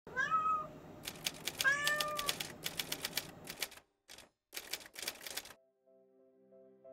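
A cat meows twice, then a rapid run of typewriter key clacks. Soft music begins near the end.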